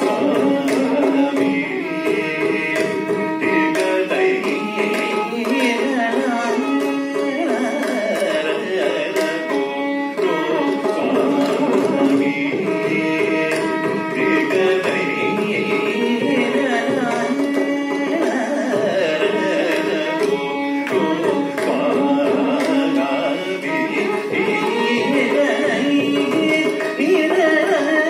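Carnatic vocal music: a male singer performing a kriti in raga Durbar, with his voice gliding and ornamenting the melody over steady mridangam drum strokes and a sustained melodic accompaniment.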